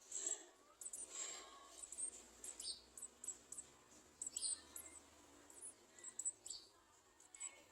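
Garden sunbirds calling: many short, very high, thin chips with a few quick downward-sweeping notes, repeated irregularly and faint.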